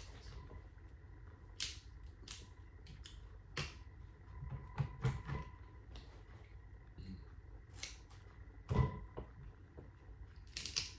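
Scattered clicks and light knocks at irregular intervals, with one louder knock about nine seconds in, over a faint low hum.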